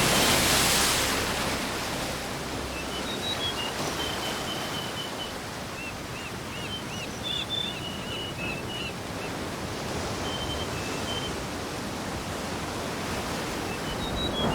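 Steady rushing nature ambience, loudest for the first second or two, with a bird's short high chirps repeating through the middle. The sound cuts off abruptly at the end.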